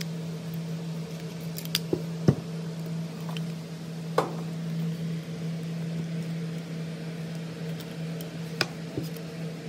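A few light clicks and taps of a small Torx driver and screws against the metal housing of an ABS hydraulic control unit as its electronic module's screws are backed out, the sharpest click a little over two seconds in, over a steady low hum.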